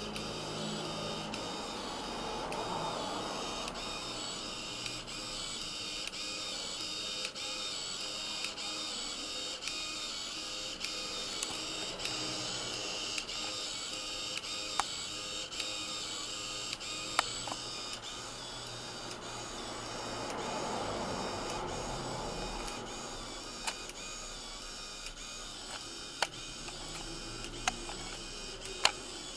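Micro-Professor's small paper-roll printer running as it prints a listing line by line: a steady mechanical whirr with a regular tick about every two-thirds of a second, and a few sharper, louder clicks in the second half.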